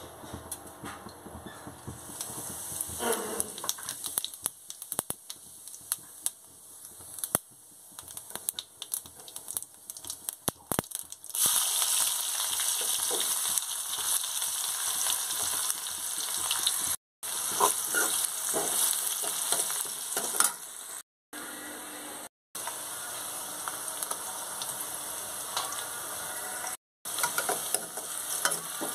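Cooking oil heating in a metal kadhai with faint crackles, then about eleven seconds in a sudden loud sizzle as chopped onion and garlic hit the hot oil. The frying sizzle continues while a steel spoon stirs and scrapes the pan, cutting out briefly a few times.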